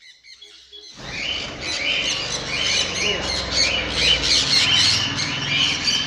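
A flock of aviary parrots, sun conures among them, calling all at once: a dense, continuous chorus of many short, high calls overlapping. It starts abruptly about a second in.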